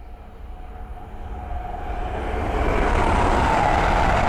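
Class 222 Meridian diesel multiple unit approaching at speed and passing close by. Its rush of noise grows steadily louder over the first three seconds, then holds at full volume as the train goes past.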